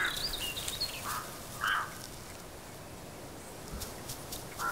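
Wild boar piglets giving short squeals and grunts, about four brief calls spread through, with a thin wavering whistle in the first second.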